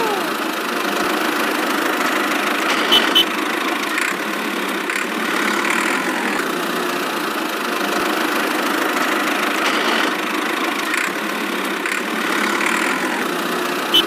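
A tractor engine running steadily at idle, with two short clicks about three seconds in.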